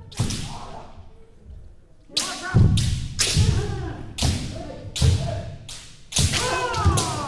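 Kendo practice on a wooden dojo floor: a run of sharp bamboo shinai strikes on armour and stamping foot-strikes (fumikomi) on the floorboards, about one a second from about two seconds in. Kiai shouts come near the end.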